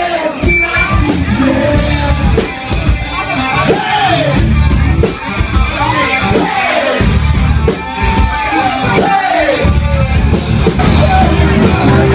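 Live cover band playing a song: a singer's voice over a steady drumbeat and heavy bass.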